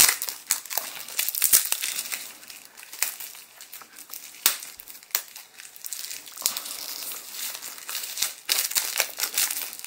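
Clear plastic shrink-wrap on a trading card deck box crinkling and crackling as fingers work it loose and peel it off, a dense run of irregular sharp crackles.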